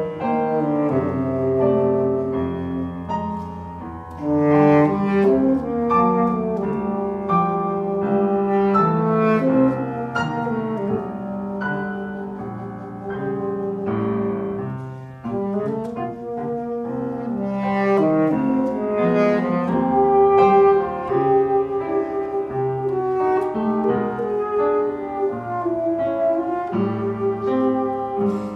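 Saxophone playing a solo line with piano accompaniment, moving through quick runs and held notes.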